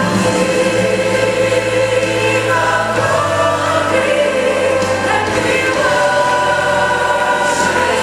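Recorded gospel choir song: choir singing held notes over instrumental backing with a steady bass.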